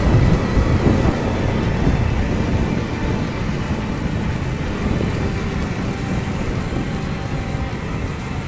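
Wind buffeting the microphone on a moving Honda Super Cub 50 motorcycle, a steady low rushing.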